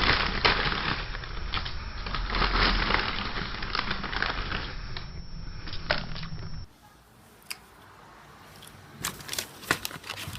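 Dense crackling, crunching noise for about six and a half seconds, like something being crushed or crumpled. It then cuts to a quieter sound with scattered sharp clicks.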